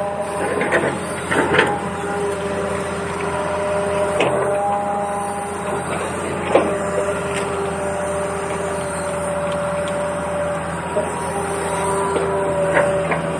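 Small motor of a toy excavator whirring steadily, its pitch shifting now and then, with several sharp clicks and knocks from the toy's parts and the sand or stones it handles.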